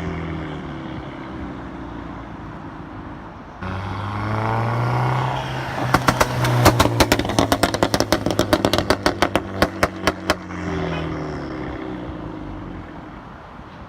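Seat Altea engine and eTuners aftermarket exhaust. The engine note falls as the revs drop, then the throttle is opened sharply about four seconds in. A rapid run of exhaust crackles and pops on the overrun follows for about four seconds, and then the revs fall away again.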